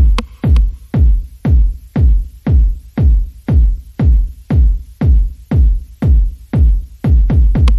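Electronic background music with a deep kick drum falling in pitch on each hit, about twice a second.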